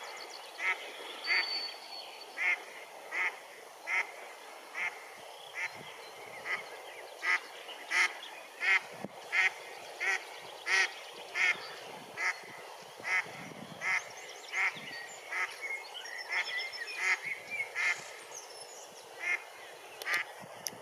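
Female mallard quacking over and over in short, evenly spaced calls, about one every two-thirds of a second, as she leads her ducklings away from a swimming dog. Thin high peeps come in here and there, and moving water hisses underneath.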